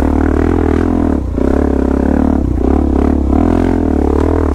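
Suzuki DR-Z400S single-cylinder four-stroke dirt-bike engine under load on a steep, technical climb. Its revs rise and fall as the clutch is feathered, with a brief drop about a second in.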